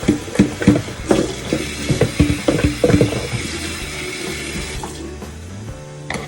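Kitchen tap running into a sink, with knocks and clatters of a bowl and utensils, shut off about five seconds in. Background music plays low underneath.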